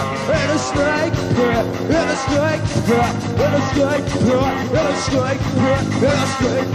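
Punk rock band playing an instrumental passage: guitar, bass and drums, with a lead line of short notes bending up and down over a steady beat.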